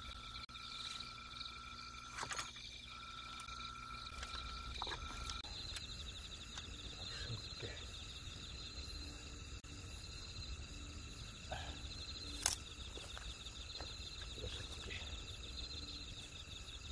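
Night insects such as crickets trilling steadily in several high, even tones, the chorus changing about five seconds in. A sharp click about twelve seconds in.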